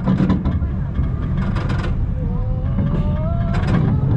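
Gerstlauer family roller coaster train rumbling and clattering along its steel track as it crests the top and starts down the drop. A long rising tone joins in about halfway through.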